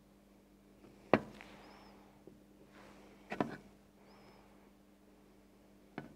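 Sharp plastic clicks and knocks from a clear plastic well plate and a dropper bottle being handled and set down on a lab bench: three of them, the first, about a second in, the loudest. A low steady hum runs underneath.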